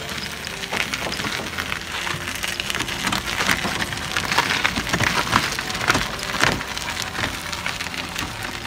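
Hard tyres of a Honda Monpal electric mobility scooter crunching over gravel as it rolls along, a dense, irregular crackle of small stones.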